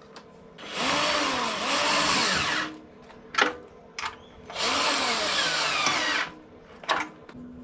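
Electric drill-driver running in two spells of about two seconds each, with its motor pitch wavering as it turns the bolts that press the compression plate against the battery cells. Short clicks come between the spells.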